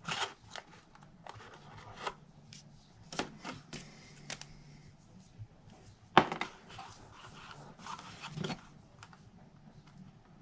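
Strip of double-sided Tear & Tape being torn and pressed onto a cardstock bag: scattered small clicks and paper rustling, with one sharp click about six seconds in.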